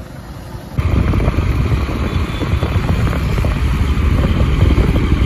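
Motorcycle riding along, its engine mixed with rough wind noise on the phone's microphone; the noise jumps much louder about a second in as the bike picks up speed.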